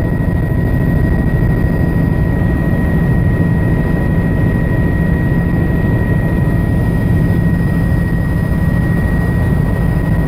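Helicopter in cruising flight heard from inside the cabin: a steady, loud drone of engine and rotor with a constant high whine over it.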